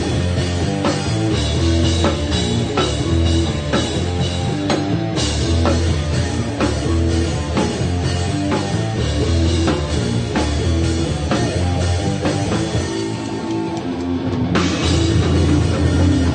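Live heavy rock band playing, with guitar, bass and a drum kit pounding a steady beat. The drums thin out briefly twice, about five seconds in and again near the end, and each time the full band comes back in hard.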